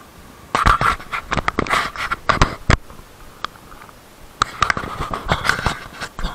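Fingers rubbing and knocking on a chest-mounted action camera right by its microphone: two clusters of loud scrapes and taps, the first about half a second in and the second after a pause of about a second and a half.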